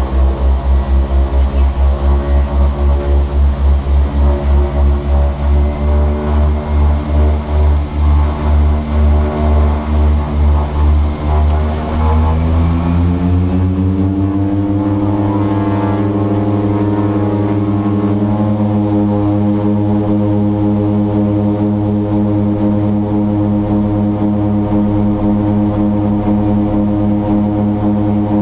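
Twin-engine turboprop heard from its cockpit: the two propellers beat against each other in a regular throb that slowly lengthens. About twelve seconds in, the pitch rises as the power levers are moved, and the engines settle into a steady, even drone with the throb gone, the propellers now running in step.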